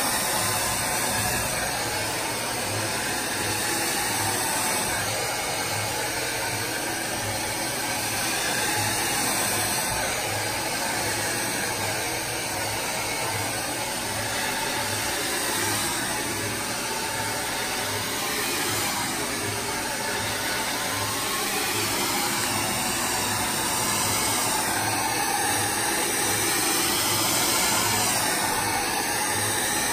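DryBar Buttercup hair dryer running steadily, blowing air through hair worked over a round brush. The rush of air rises and falls slightly in loudness as the dryer moves around the head.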